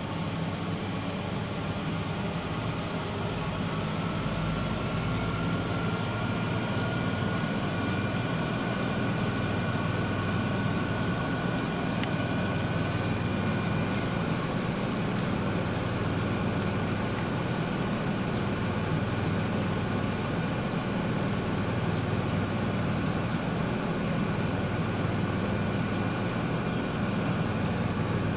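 Miele W1 WMF121WCS front-loading washing machine running its wash cycle, the drum turning with water in it over a steady motor hum. A faint motor whine rises slightly in pitch over the first ten seconds or so, then holds steady.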